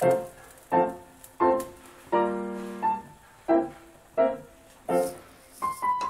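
Background piano music: notes struck about every 0.7 seconds, each ringing and fading, with a longer held chord about two seconds in.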